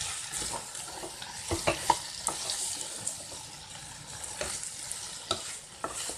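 A spatula stirs thick yam masala in a granite-coated non-stick wok, and the masala sizzles steadily. Scattered scrapes and sharper knocks of the spatula against the pan cut through, the loudest about two seconds in.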